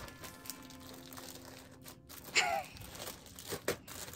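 Plastic-wrapped canvas panels being handled and shifted on a carpet: soft crinkling of the plastic wrap and a few light taps. About halfway through comes one short, sharp squeak with a falling pitch, the loudest sound here.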